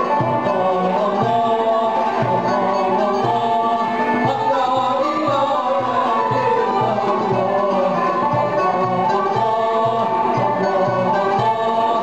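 Live Turkish Sufi devotional music (tasavvuf ilahi): male voice singing through a microphone over violin and other instruments, with a steady drum beat.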